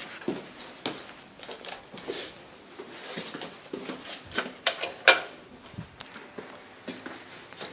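Irregular clicks, taps and knocks of things being handled, with one sharper knock about five seconds in.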